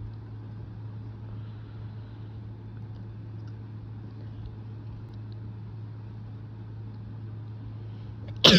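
A steady low hum, then near the end a person's single loud, sharp sneeze.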